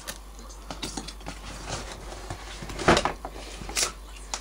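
Handling noise as things are moved about and set down: scattered light clicks and rustles, with a louder knock about three seconds in and another just before four seconds.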